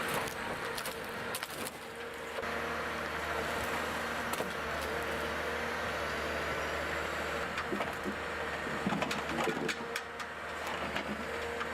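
Heavy logging machine's engine running steadily, with scattered knocks and clanks in the first couple of seconds and again later on.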